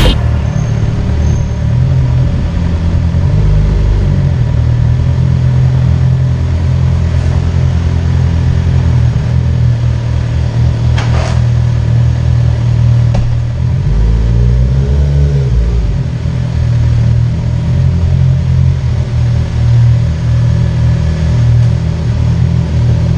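Suzuki GSX-R750's inline-four engine running steadily at low engine speed as the bike rolls slowly along. About 14 seconds in the engine pitch briefly rises and falls, and a single sharp click comes a few seconds before that.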